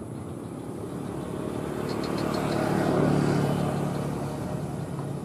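A motor vehicle's engine passing by, growing louder to a peak and then fading away, with a short run of high chirps about two seconds in.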